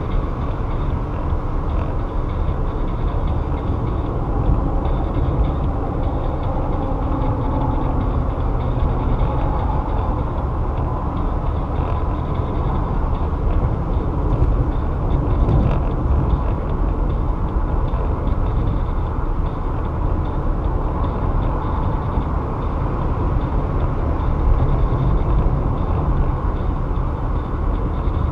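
Steady road and engine noise heard from inside a moving car: a constant low rumble of tyres and engine with no sudden events.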